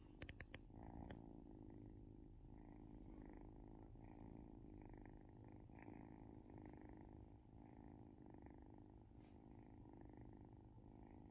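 A kitten purring steadily, picked up close. A quick run of light clicks about half a second to a second in, and one more click near the end.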